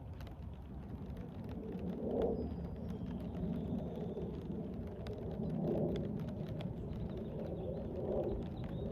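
Rain ambience: scattered raindrop ticks over a low rumble that swells and fades several times, with a faint high bird call about three seconds in.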